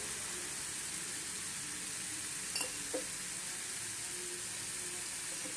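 Chopped onion, peppers and grated carrot sizzling steadily in oil in a frying pan, with two light clicks a little past halfway.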